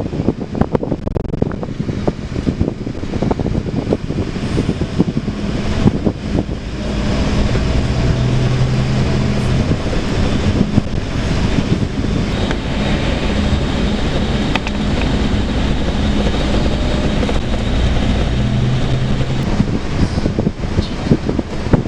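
Scania K410 bus under way: engine drone and road rumble with wind noise. The noise grows louder about a third of the way in, and a steady low hum holds until shortly before the end.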